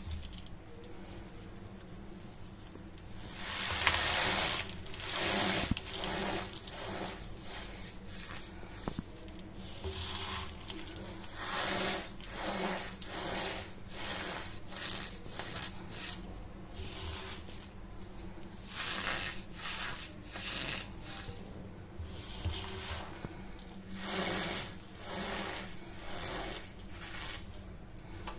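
Chunks of packed cornstarch being crumbled, a run of crunchy crumbling and rubbing bursts every second or so, the loudest about four seconds in.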